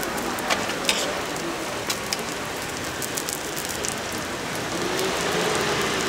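Hotteok sizzling in oil on a flat steel griddle, a steady hiss, with scattered light clicks as metal tongs turn the pancakes and tap the griddle.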